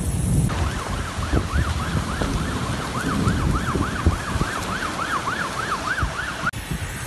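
Emergency-vehicle siren in a fast yelp, its pitch sweeping up and down several times a second. It starts abruptly about half a second in and cuts off near the end, over a low rushing noise of rain and wind.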